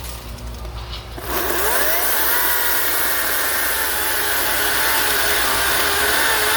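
Ryobi 40-volt brushless cordless chainsaw spinning up about a second in, then running at a steady high whine with its chain rasping as it cuts through an oak log, the pitch sagging slightly under load.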